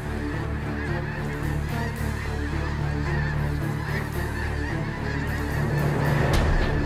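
A large flock of snow geese calling overhead, a dense, continuous din of many overlapping honks.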